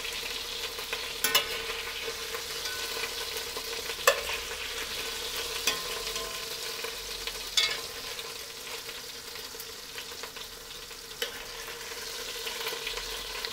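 Hot oil sizzling steadily in a Dutch oven over the browned-chicken fond, with a few sharp knocks against the pot and a steady hum underneath.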